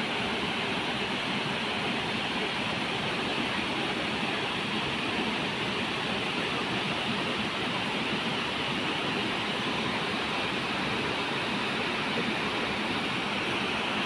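Steady rushing of water falling and flowing over rocks at a waterfall and its rocky stream, an even, unbroken noise.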